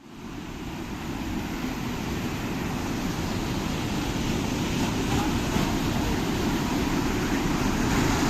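Steady low rush of wind and a moving vehicle's road rumble, building gradually in level.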